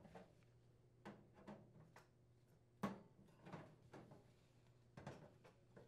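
Faint, scattered clicks and light knocks of thin sheet metal as the perforated access cover is worked loose and lifted out of the microwave's bottom panel.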